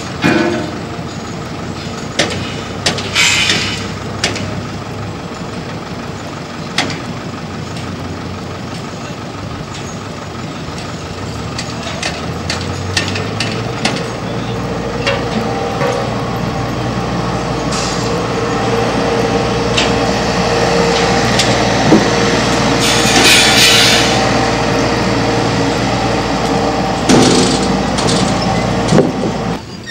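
Heavy diesel vehicle's engine running, growing louder about halfway through, with short hisses of released air from its air brakes, one a few seconds in and one in the second half, and scattered knocks.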